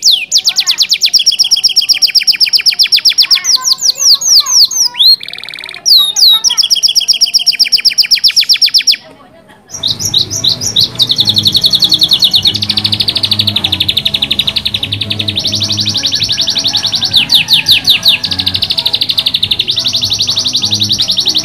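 Domestic canary singing: fast repeated sweeping notes and trills. After a short break about nine seconds in, the song goes on in long, even rolling trills over a low background rumble.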